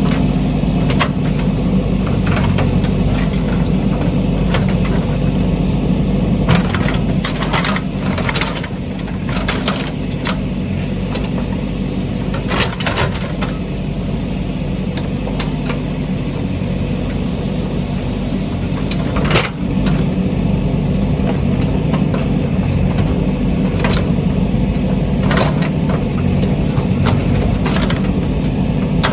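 JCB backhoe loader's diesel engine running steadily, with a few sharp knocks and clanks from the machine at work.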